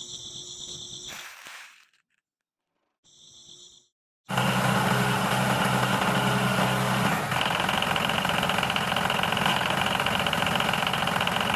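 Diesel engine running steadily, driving a miniature rice-pounding machine. It starts suddenly about four seconds in after a quiet gap, and its tone changes slightly about seven seconds in.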